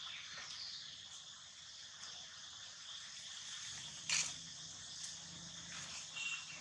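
Steady chirring of insects in the background, a continuous high hiss, with one short rustle about four seconds in.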